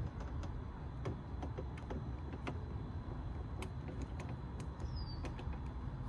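Scattered light clicks and taps of a Torx screwdriver being handled at the edge of a car door, over a steady low outdoor rumble. A short high falling chirp about five seconds in.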